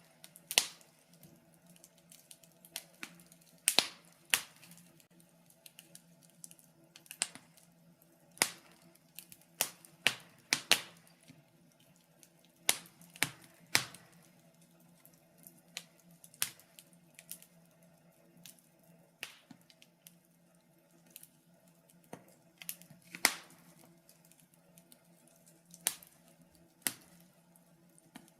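Wood fire crackling in a fireplace: irregular sharp pops and snaps at uneven intervals, a few much louder than the rest, over a faint steady low hum.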